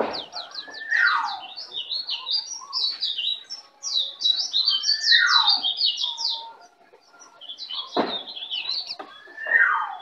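Recorded songbird chorus of the kind used as a masteran track to coax caged birds into singing. Rapid high chirps and trills run almost without a break, and a louder whistle slides downward three times, about every four seconds. A sharp click sounds about eight seconds in.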